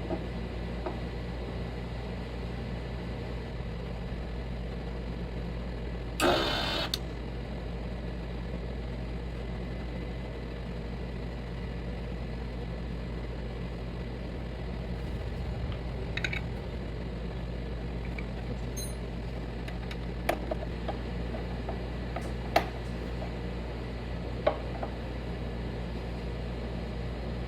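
Steady low hum underneath a few handling noises: a short scraping rattle about six seconds in, then scattered sharp clicks and knocks in the second half, as parts are being remounted.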